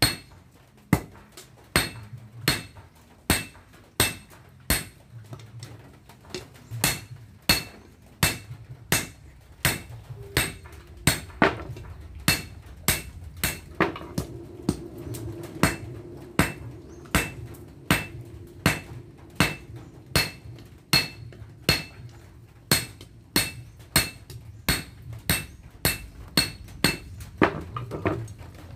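Blacksmith's hand hammer forging a red-hot golok blade of excavator breaker-chisel steel on an anvil: a steady rhythm of sharp ringing clangs, about one a second at first and close to two a second later on.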